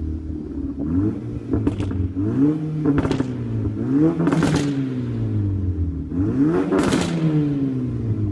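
Volkswagen GTI MK6's turbocharged 2.0 litre four-cylinder revving up and down about four times through a resonator-deleted Corsa turboback exhaust, with a burst of crackles and pops on each rev. The crackles come from the Stratified tune.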